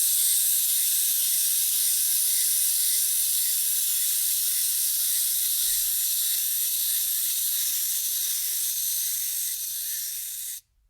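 Wind-up toy's clockwork mechanism running: a high, fast whirring buzz that slowly weakens and then stops abruptly near the end.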